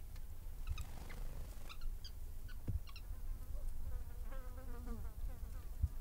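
Small birds chirping in short runs of high notes in the first half, then a fly buzzing past about four seconds in, over a steady low rumble.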